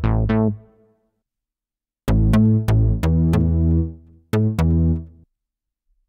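A synth bass preset from the reFX Nexus 2 'Sound of the 80s' expansion plays a short riff of plucky notes, each bright at the start and quickly dying away. The riff starts about two seconds in, after the end of a previous phrase fades out in the first second. There is a short gap inside the riff.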